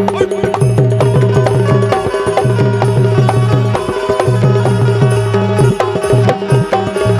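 Instrumental passage of Bundeli Rai folk music: fast hand-drum strokes with bending bass notes, over a held melodic tone, with sharp metallic strikes on top.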